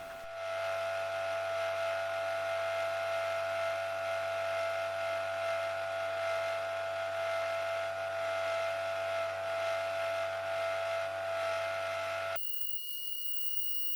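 A workshop machine running steadily with a constant whine and hiss, cutting off abruptly about twelve seconds in, where a quieter, higher steady tone takes its place.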